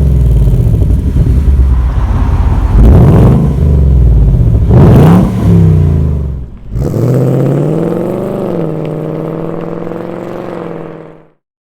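Ford Mustang GT's 5.0-litre naturally aspirated V8 running hard through its stainless active-valve exhaust, the revs rising and falling with sharp breaks about three and five seconds in. After a break about two-thirds of the way through comes a smoother, steadier engine note that fades out near the end.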